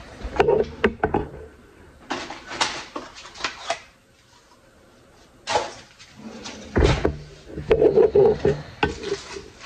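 Kitchen handling noises: a scattered series of knocks and short clatters, like cupboard or drawer doors and kitchen things being moved, with a quieter gap about four seconds in.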